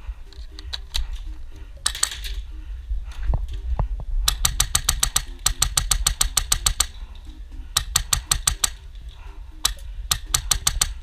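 Airsoft guns firing rapid full-auto bursts, about ten shots a second: a long burst a little after the start, then two shorter ones. A few single shots come earlier.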